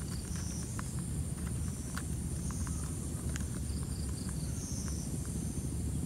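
Steady high-pitched insect drone over a low rumble, with scattered faint ticks and a few short high chirps.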